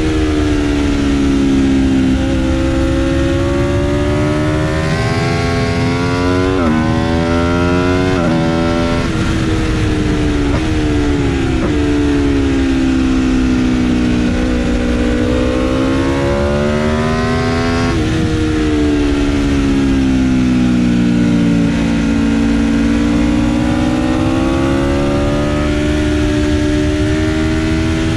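Aprilia RSV4 RF's V4 engine at race pace under the rider: revs climbing under hard acceleration, dropping sharply at upshifts about six and a half and eighteen seconds in, and falling more gradually while slowing for corners, over a steady rush of wind.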